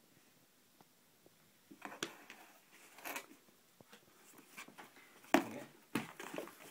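Kitten scrabbling and pawing at a cardboard puzzle box: irregular bursts of scratchy rustling with a few sharp knocks, starting about two seconds in and loudest about five seconds in.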